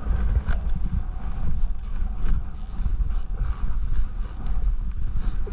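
Wind buffeting the camera microphone in a steady low rumble, over the hiss and scrape of a snowboard and gloved hands pushing through deep powder snow.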